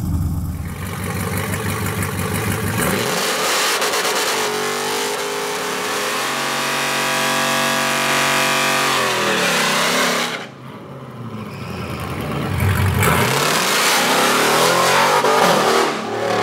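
Supercharged 6.2-litre Hellcat Hemi V8 in a 1968 Dodge Charger revving hard during a burnout, the rear tyres spinning. The revs climb and hold high, against the rev limiter in second gear. After a sudden drop about ten seconds in, the engine climbs again as the car launches down the strip.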